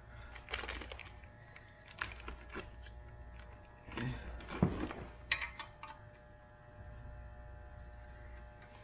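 Scattered light clicks and knocks of metal engine parts being handled while crankshaft bearing shells are set in place, over a faint steady hum. The loudest knock comes a little past halfway.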